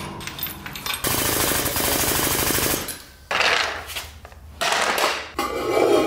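A rapid, even clicking rattle for about two seconds, starting about a second in, then several short bouts of scraping and clatter.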